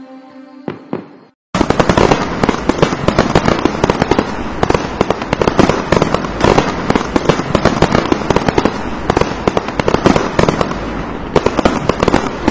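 Fireworks display: a dense barrage of rapid, overlapping bangs and crackles that cuts in suddenly about a second and a half in and keeps going, loud and unbroken. Before it, a few sharp pops over a steady tone.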